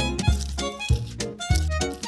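Background music with a steady beat and a light melody.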